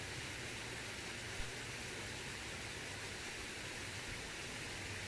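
Steady outdoor background hiss with a faint low hum underneath, and one small click about a second and a half in.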